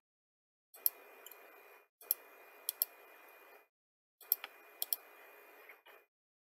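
Computer mouse clicking, about seven sharp clicks with some in quick pairs, as curves are picked one by one on screen. Behind them is a faint microphone hiss that cuts in and out.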